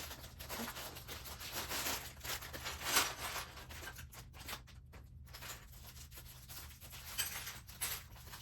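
Lego bricks and plastic parts handled and rubbed together during building: dense rustling and scraping for the first few seconds, the loudest scrape about three seconds in, then lighter scrapes and small clicks.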